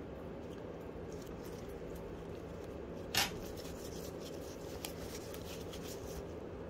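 Gloved hands handling a smartphone and wiping its glass back with a paper cloth: soft rubbing and a few faint ticks, with one sharp tap about three seconds in, over a steady low room hum.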